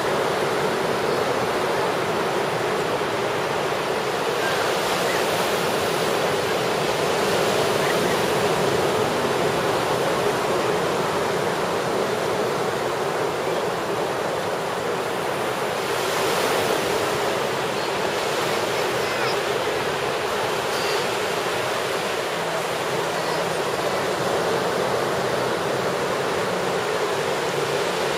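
Ocean surf washing onto a rocky boulder shore: a steady rushing hiss of water that swells slightly now and then.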